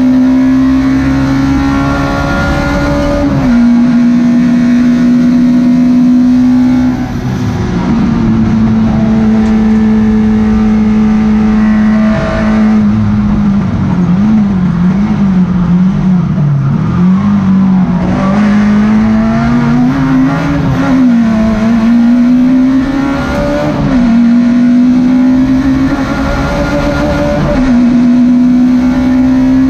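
Citroën Saxo race car's 1.4-litre four-cylinder engine at high revs, heard from inside the stripped cabin. It holds a steady note, drops in pitch at upshifts a few seconds in and again about seven seconds in, wavers up and down through a run of corners midway, then climbs and shifts twice more near the end.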